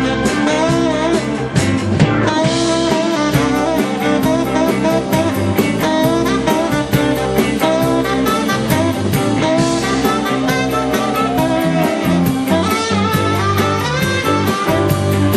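Live rock band playing at a steady beat, a saxophone carrying the lead melody over electric guitar and a drum kit.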